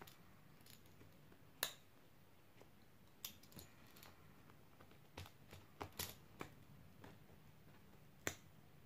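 A handful of faint, sharp clicks over near silence: locking pliers (vise-grip) closing on and shifting against a metal zipper slider. The slider is being squeezed so that its worn, spread jaws grip the zipper teeth again and the teeth mesh.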